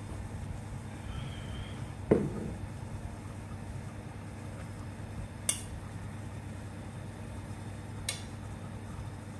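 Cookware clanking: one ringing knock about two seconds in, then two sharp clicks, over a steady low hum.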